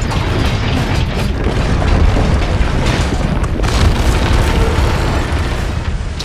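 Film sound effects of a high-rise building collapsing: a heavy, continuous deep rumble broken by several sudden crashes, with music underneath.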